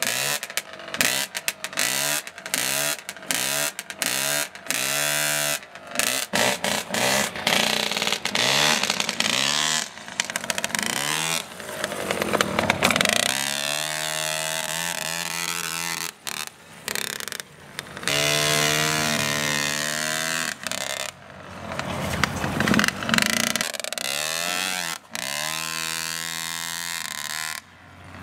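Mini dirt bike's small engine being revved as it is ridden: quick rising throttle blips about once a second at first, then longer pulls that rise and hold, with short drops off the throttle between them.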